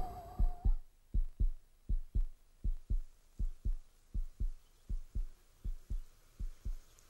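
A heartbeat sound effect: paired low thumps (lub-dub) repeating evenly, about four beats every three seconds. A held tone stops about a second in.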